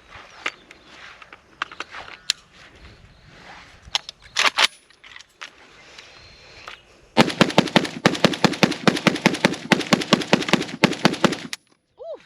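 A few clicks and knocks of handling, then, about seven seconds in, a PSA AK-105 rifle chambered in 5.45x39 fires a rapid, even string of shots, about seven a second, for some four seconds before stopping abruptly.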